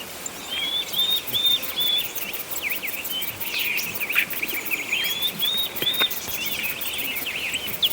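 Birds singing: runs of short, arched whistled notes, about four in a row, heard twice, among quicker chirps.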